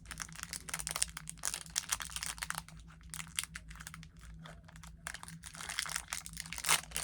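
Blind-bag packaging crinkling as it is handled: a run of irregular crackles, over a faint steady hum.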